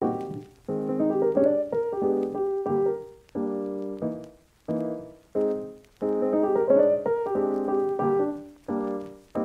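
Background music: a keyboard plays short phrases of notes and chords, separated by brief pauses.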